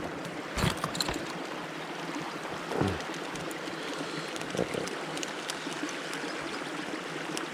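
Steady rushing and trickling of flowing stream water, with a few faint knocks in the first half.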